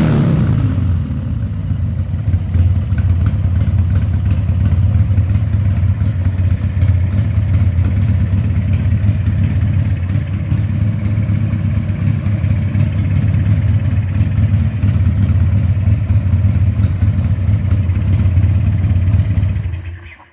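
2000 Harley-Davidson Sportster 1200's air-cooled V-twin running steadily at idle on its freshly rebuilt carburettor, now with the air cleaner fitted, after a sharp burst right at the start; it is shut off near the end.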